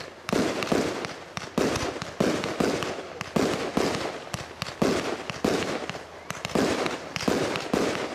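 A 100-shot fireworks cake firing in rapid succession: a sharp bang about twice a second from its red dahlia shots, with smaller sharp pops between them from the blue and white strobe mines.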